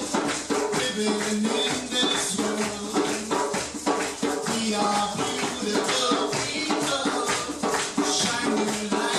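Live percussion jam: shakers rattling in a steady rhythm over repeated percussion strokes, with a held, pitched melody line running through it.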